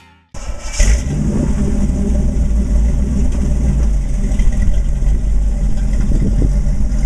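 Corvette 283 small-block V8 running through twin tailpipes, a steady low exhaust rumble as the roadster pulls slowly away. The engine sound cuts in suddenly about a third of a second in, with a brief swell just after.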